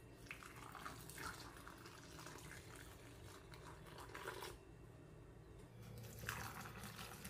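Faint trickle of hot water poured from a measuring jug through a cloth tea sock of green tea leaves into a glass pitcher.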